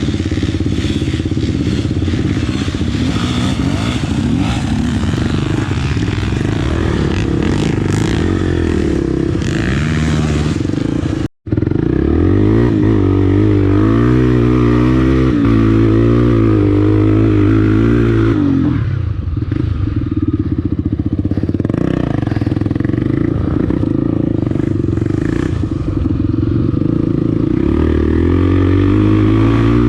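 Honda Tornado 300cc trail motorcycle engine running under load, its pitch rising and falling as it is revved and shifted through the gears. The sound breaks off for an instant about eleven seconds in.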